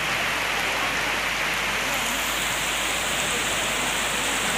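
Rain falling steadily onto a flooded paved courtyard, an even hiss of rain on standing water.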